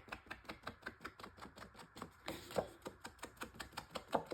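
Rapid light tapping, about seven taps a second, of an ink pad being dabbed along the edge of a paper piece to ink it.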